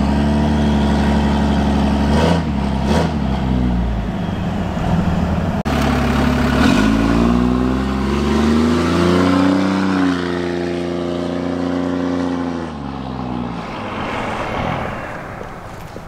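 Dodge Ram's 6.7 Cummins turbo-diesel with an upgraded turbo and 5-inch exhaust, heard first running steadily from inside the cab. After a break about five and a half seconds in, the truck accelerates past: the engine note rises, holds, then falls and fades as it drives away.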